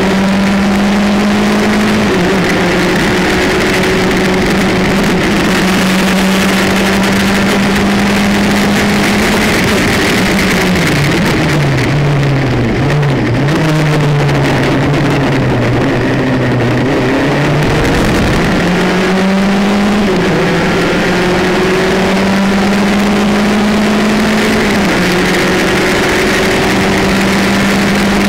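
Formula Campus single-seater race car's engine at speed, heard from the cockpit. The engine note holds high on the straight, falls in several steps as the car slows for a corner about ten seconds in, then climbs again with gear changes as it accelerates out.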